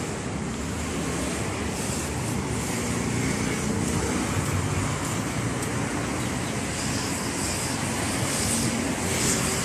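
Road traffic: cars and a motorbike passing on a city street, a steady wash of engine and tyre noise.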